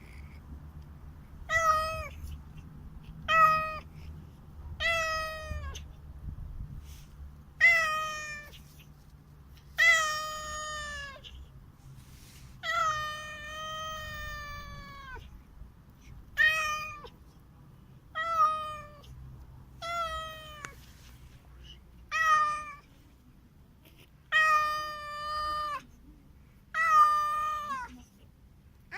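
A cat meowing over and over, about fourteen meows a couple of seconds apart, each falling in pitch at the end, with two long drawn-out meows around the middle.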